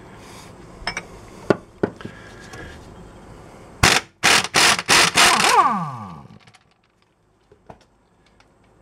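Air impact wrench loosening the nut on the lower strut-to-steering-knuckle bolt in a rapid run of short hammering bursts about four seconds in, then its motor winding down with a falling whine. A few sharp metal clinks of the tools come before.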